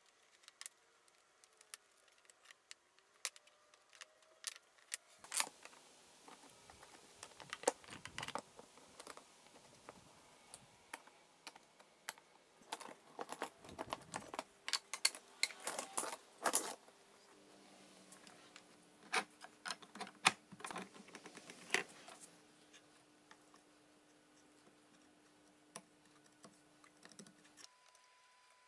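Light clicks and knocks of small dovetailed wooden box parts and bar clamps being handled and set down on a wooden workbench, in irregular clusters. A faint steady hum runs through the second half.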